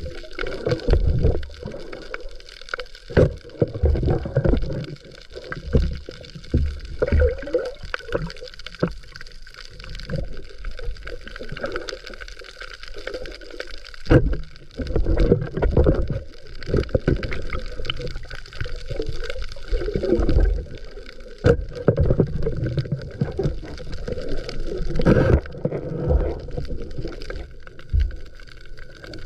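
Water sloshing and gurgling heard underwater as a spearfisher swims over a reef, coming in uneven surges, with a few sharp clicks.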